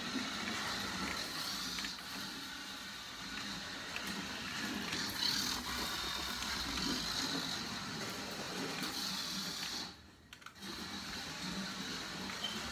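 Small electric motor of a toy RC car whirring faintly and steadily as it drives around on a hard floor; the sound cuts out briefly about ten seconds in.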